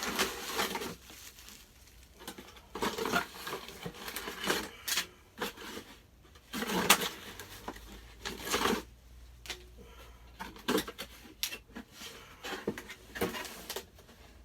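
Cardboard box and plastic packaging being opened and the contents handled: irregular rustling and scraping with sharp knocks and clicks, in a small room.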